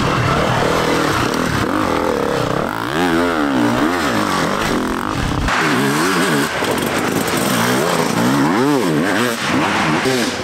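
Enduro dirt bike engines revving hard, the pitch rising and falling again and again as the throttle is worked over rough ground. About five and a half seconds in, the sound switches abruptly to a second bike.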